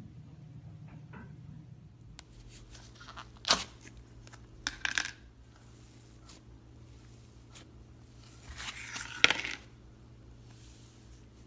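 Cloud slime being pulled and pressed by hand, giving soft crackling and tearing sounds. A sharp snap comes about a third of the way in and a cluster of crackles follows; a longer crackly tear builds up in the last third and ends in the loudest snap.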